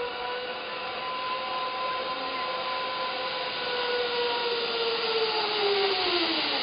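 Zipline trolley pulleys running along the steel cable: a steady whine with two or three tones together, sliding down in pitch over the last second or two as the rider slows coming in to the platform.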